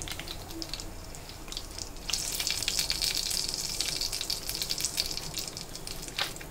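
Whole spices, among them dried red chillies and bay leaf, sizzling and crackling in hot oil in a kadai for a tempering. The sizzle grows louder and denser about two seconds in.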